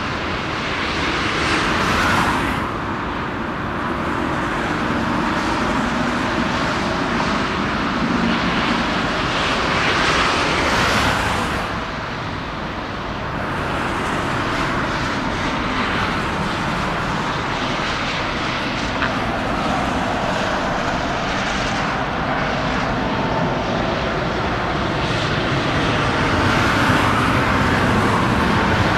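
Boeing 747-8 freighter's four GEnx-2B turbofan engines at takeoff thrust as the jet climbs out overhead: a steady, loud rumble and rush of jet noise, growing a little louder near the end as it passes over.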